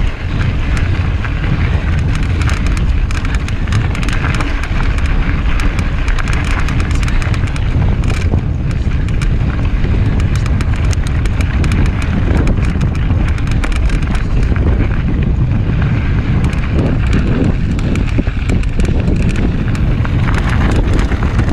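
Mountain bike ridden fast over rocky trail: wind rushing over the microphone, with the tyres and frame rattling and knocking on the rocks in a steady stream of small clicks.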